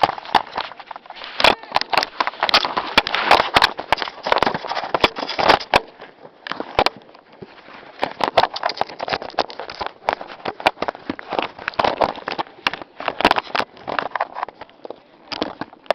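Snowboard sliding and scraping over snow, a rough hiss broken by many irregular crackles and knocks.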